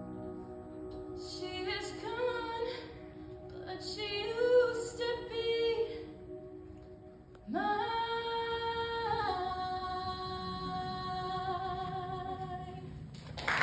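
A teenage girl singing solo into a microphone over soft sustained accompaniment. She sings several short phrases, then ends on one long note held for about five seconds, sliding up into it and stepping down partway through.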